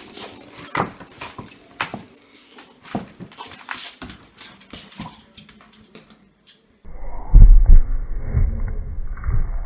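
A dog batting a small round container around a hardwood floor: a string of sharp clicks and taps as it skitters and as the dog's claws hit the boards. After about seven seconds the sound turns muffled, with a few heavy low thumps, the loudest thing here.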